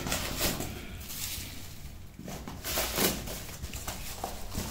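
Rustling and crinkling of a plastic-lined cardboard box being handled and emptied, in several uneven swells, with a short knock near the end.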